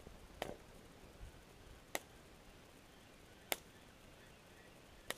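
Four sharp clicks from a spinning rod and reel during a lure retrieve, evenly spaced about a second and a half apart, over faint quiet background.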